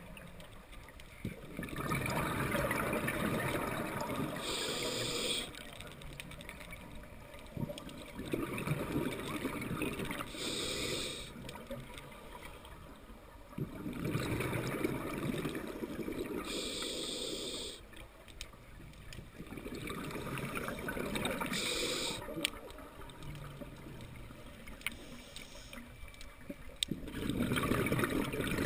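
Scuba diver breathing through a regulator underwater: repeated bursts of rumbling, gurgling exhaled bubbles alternate with short hisses of air, about one breath every six seconds.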